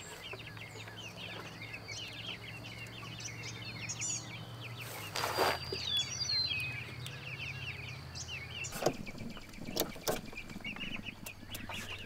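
A flock of young Cornish Cross meat chicks peeping steadily. A brief rustle comes about five seconds in, and a few sharp clicks come near the end.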